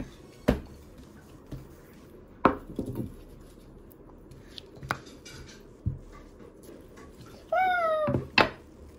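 Scattered sharp knocks and clicks of small objects being handled and set down on a hard surface, the loudest about two and a half seconds in. Near the end comes a short high-pitched sound that wavers in pitch, like a voice.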